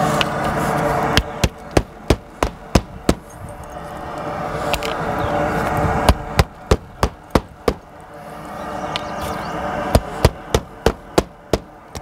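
Hammer driving roofing nails through the flange of a radon pipe's roof boot into the shingled roof. There are three quick runs of six or seven strikes each, about three strikes a second.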